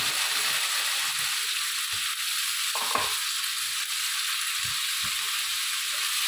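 Onion, ginger-garlic paste, yogurt and chopped tomato sizzling in hot oil on a large flat tawa, with a slotted spatula stirring and scraping through the mix. The sizzle is a steady hiss, with short knocks of the spatula against the pan, the loudest about three seconds in.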